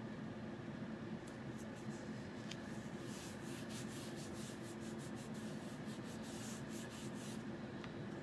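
Fingertips rubbing over a plastic silkscreen stencil to press it down onto a fabric pillow cover. About three seconds in comes a quick run of scratchy strokes lasting around four seconds, over a steady low hum in the room.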